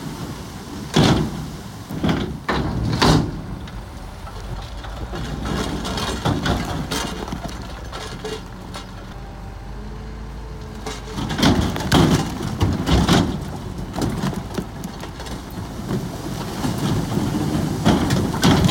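Komatsu D65E bulldozer's diesel engine running steadily under loud clanks and scraping crashes of rock and steel. The crashes are heaviest about a second in, again around two to three seconds, in a cluster about two-thirds through, and near the end.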